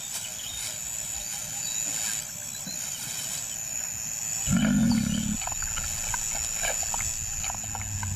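Lion giving a low growl that lasts about a second, a little past halfway through. Softer scattered ticks follow it.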